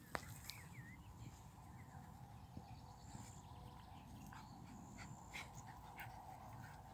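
Near silence: a faint outdoor background with a few small clicks and a short, faint, wavering high whine in the first second.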